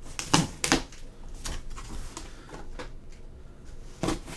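Large cardboard shipping box being handled and its taped flaps pulled open: a series of sharp cardboard knocks and rustles, loudest near the end.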